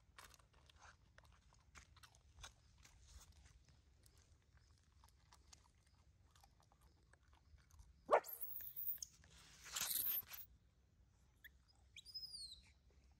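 A puppy crunching and chewing dry food scraps: a run of small crunches. About eight seconds in comes a loud, harsh burst lasting about two seconds, and near the end a baby monkey gives a few short, high squeals.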